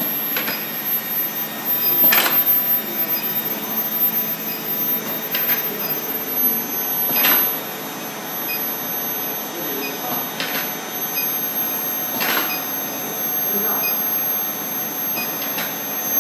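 Automatic bar forging line with an induction heater running: a sharp clank about every two to three seconds as the machinery cycles, over a steady mechanical hum and a thin, very high whine.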